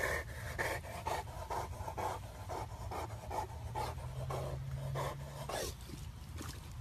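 Large dog panting hard and fast, about three breaths a second, easing off near the end.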